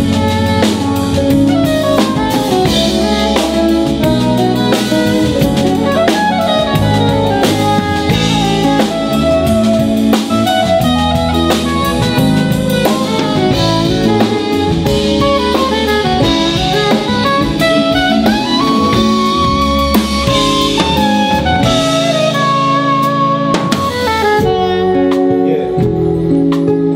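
Live jazz-funk band playing an instrumental break: drum kit, bass and keys keep the groove while a saxophone plays a wandering melody on top.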